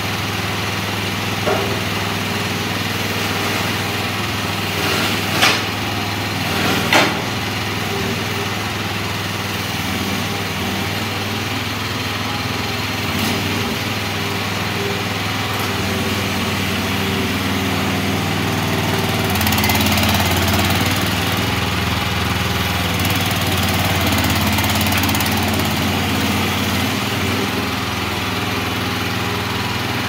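The 13.5 hp Briggs & Stratton engine of a stand-up mini skid steer loader running steadily while the machine is driven and its bucket worked. A few sharp knocks come in the first several seconds, and the engine grows louder for a few seconds about two-thirds of the way through.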